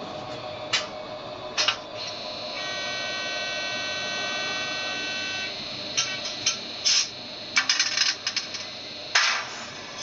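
ESU LokSound 4.0 sound decoder in a Fleischmann BR 103 model electric locomotive, playing electric-locomotive sounds through its small speaker. A steady hum is broken by sharp metallic clicks, a few early on and a quick cluster near the end, and a steady whine of several tones sounds for about three seconds in the middle.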